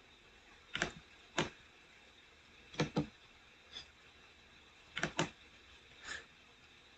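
Computer mouse clicking: about eight short, sharp clicks spread out with gaps, several in quick pairs like double-clicks, over faint room noise.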